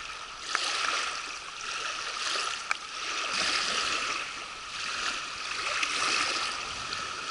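Small wind-driven waves lapping on a pebbly river shore: a steady rushing water noise that swells and eases every few seconds, with a few faint ticks.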